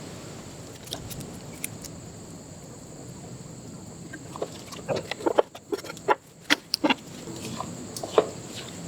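Mud crab shell being cracked and picked apart by hand to get the meat out: scattered sharp clicks and cracks, bunched together a few seconds in, with one more near the end.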